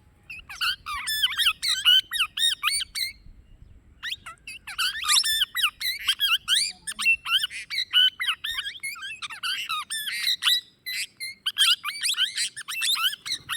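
Plum-headed parakeet calling: quick runs of short, high-pitched squawking notes, with brief pauses about three seconds in and again near eleven seconds.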